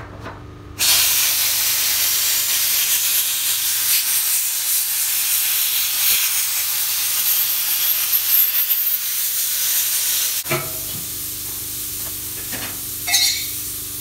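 Plasma cutter cutting through a steel gasifier drum: a loud, steady hiss that starts about a second in. About ten seconds in it drops to a quieter hiss, with one brief louder flare near the end.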